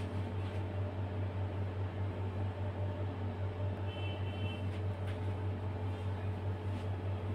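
Steady low motor hum with an even hiss underneath.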